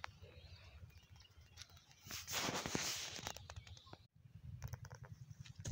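Rustling and handling noise on a handheld microphone over a low wind rumble, with a louder rustle about two seconds in and a brief dropout just after four seconds.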